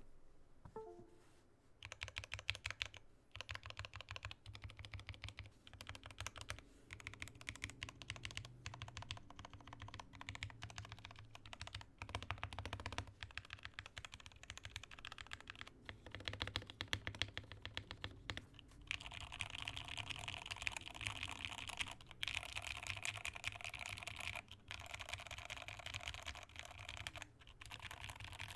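Fast, continuous typing on a Rama M60a mechanical keyboard with lubed Tealios V2 linear switches and GMK keycaps: a dense stream of keystrokes that starts about two seconds in, with a few short pauses.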